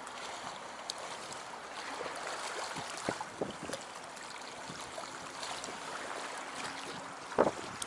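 Small wind-driven waves lapping and splashing against the shore and a wooden post, with scattered light knocks and one sharper splash or knock near the end.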